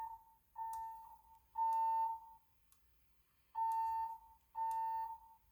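Fire alarm speaker strobe sounding the temporal-three evacuation tone: a steady mid-pitched beep in groups of three short pulses with a pause between groups, the alert that comes before a recorded voice evacuation message.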